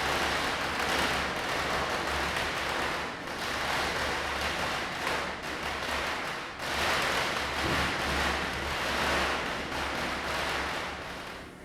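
Diwali firecrackers bursting in a rapid, dense crackle of many small reports, swelling and easing, with a brief dip a little past halfway.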